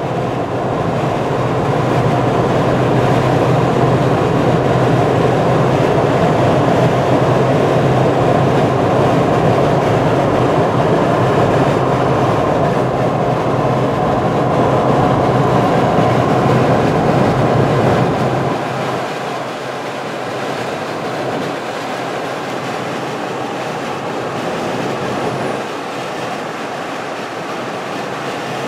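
Steady highway rumble of tyres and engines, heard from a moving car running alongside a tractor-trailer pulling double refrigerated trailers, with a low hum under the noise. About 18 seconds in it gets somewhat quieter and the low hum drops away.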